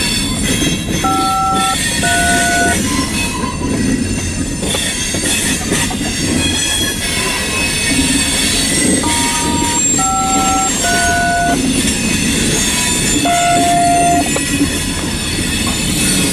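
Freight cars, tank cars and covered hoppers, rolling past with wheel squeal and clatter over the rails. Short two-tone touch-tone beeps from a railroad radio sound over it, two near the start and a group of four from about nine seconds in.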